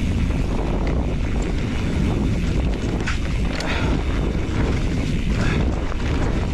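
Wind buffeting the microphone and tyre rumble from a mountain bike riding fast over a dirt trail, with a few brief rattles about halfway through.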